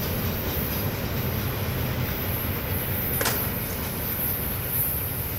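Freight train running on the rails, a steady low rumble, with one sharp click about three seconds in.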